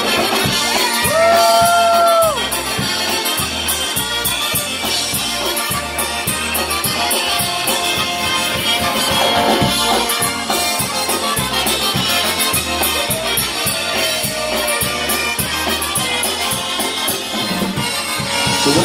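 Polka band playing live: piano accordion, button concertina, trumpet, saxophone and bass guitar in an instrumental passage between sung verses, with one long held note about a second in.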